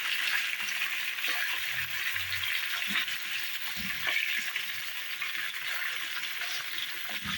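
Mutton pieces sizzling steadily in hot ghee with whole spices as the meat sears and changes colour, with a few light knocks from stirring.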